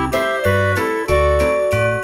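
Instrumental background music with a steady beat: bell-like pitched notes over a bass line, changing about every half second.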